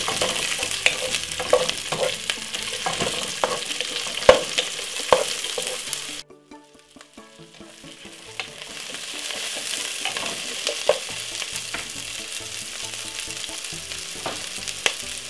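Chopped onion, carrot and spring onion sizzling in hot oil in a non-stick pot, with a wooden spoon knocking and scraping against the pot as they are stirred. About six seconds in the sound cuts out abruptly, then the steady sizzle comes back with only an occasional knock.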